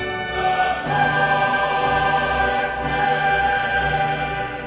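Choral music: a choir singing long held notes, the chord changing about a second in.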